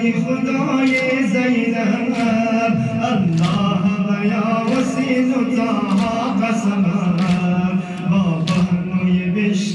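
A man chanting a Shia mourning lament (noha) into a microphone in a slow, drawn-out melody. Sharp chest-beating slaps from the mourners come about once a second.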